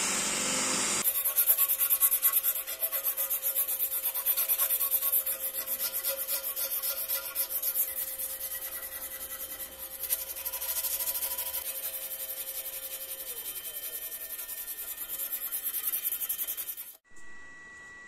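Wooden tool handle being sanded by hand: rapid back-and-forth rubbing strokes of abrasive on wood. In the first second a belt sander runs before a sudden cut. Near the end the rubbing stops abruptly, leaving a quiet room with a faint steady tone.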